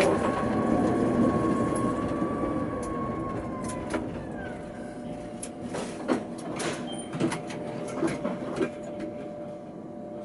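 Tatra K2P tram braking to a stop: its running noise fades and a motor whine slides down in pitch, then, once it stands, a few sharp clicks and knocks over a steady hum.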